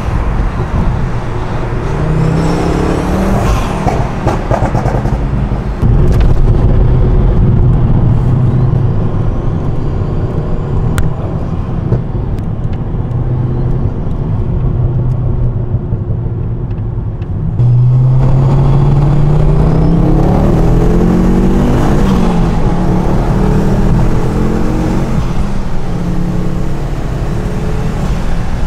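Ford Focus ST Mk2's turbocharged five-cylinder engine under hard acceleration, its note climbing through pulls and twice jumping louder as the throttle opens. Little bangs and crackles come from the exhaust.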